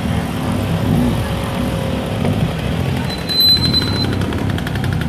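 Low, uneven vehicle engine rumble, with a brief high-pitched tone about three seconds in and a fast rattling pulse after it.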